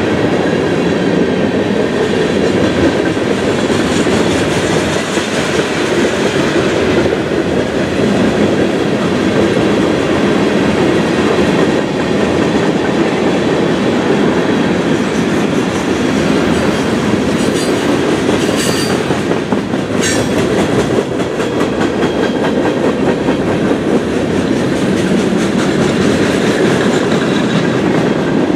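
Freight cars of a mixed manifest train rolling past at close range: a loud, steady rumble of steel wheels on the rails with a continuous clickety-clack. A brief high wheel squeal comes about two-thirds of the way through.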